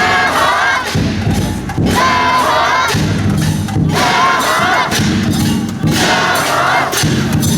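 A group of float haulers shouting a rhythmic chant together, with a new shout about every two seconds over steady drum beats. This is the call-and-haul of a Nagasaki Kunchi dragon-boat float being worked.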